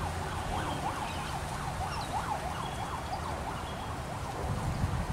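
Distant siren-like warble, a tone sweeping up and down about three times a second, over a low steady outdoor rumble.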